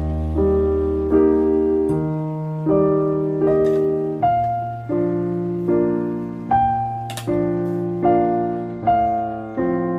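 Background piano music: an even run of chords, about four every three seconds, each struck and fading into the next.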